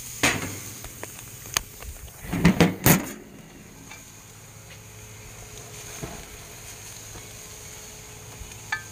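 Metal clanks and knocks of gas-grill parts and tools being handled as the steaks are moved, a few sharp clicks and then a louder clatter about three seconds in. The faint hiss of sizzling drops after the clatter, leaving only a low steady background.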